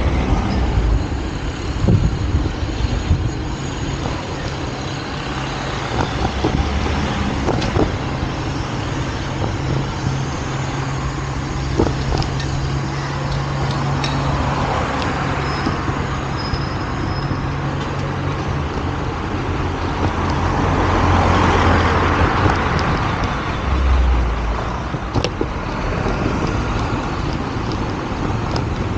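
Road traffic: engines hum steadily at a low pitch while vehicles pass by, the loudest pass swelling and fading a little past the middle.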